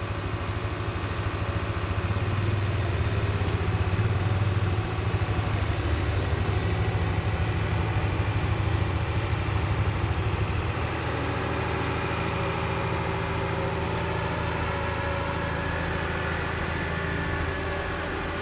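Tractor engine running steadily under load while a Schuitemaker Rapide 135 self-loading forage wagon unloads grass. The engine note drops a little about eleven seconds in.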